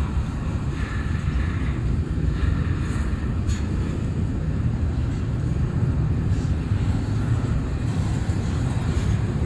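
Double-stack intermodal freight train's well cars rolling past: a steady low rumble of steel wheels on the rails.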